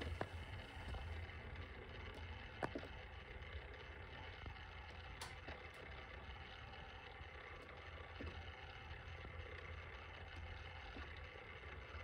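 Quiet room tone: a steady low hum with a few faint ticks, one of them a little louder about two and a half seconds in.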